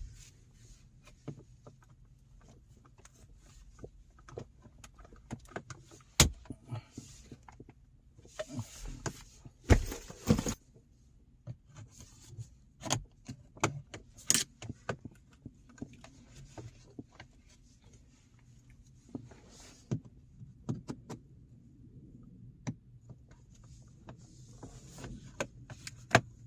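Scattered clicks, taps and scraping of hard plastic as an Acura MDX dashboard trim panel is pried loose with a tool, with a few sharper knocks now and then.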